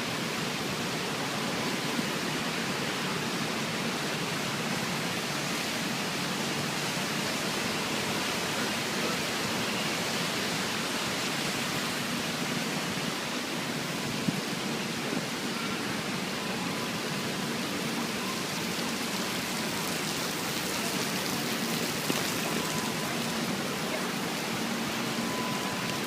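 Heavy rain pouring down in a steady, even hiss, with a few faint taps.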